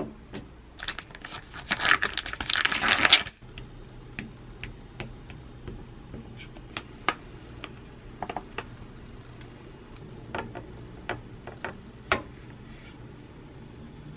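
A wooden spoon stirring and scraping a thick chili sauce in a glass bowl, a dense clattering scrape for about two and a half seconds that cuts off suddenly. Then come scattered light clicks and rustles as a bag of powder is handled and shaken out onto a plate, and a sharp knock near the end.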